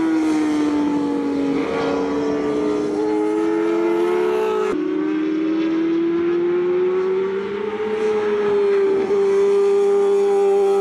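Racing motorcycle engines at high revs through a long corner. The first bike's note dips, then climbs steadily. After an abrupt cut about halfway, a second bike's note rises slowly and holds.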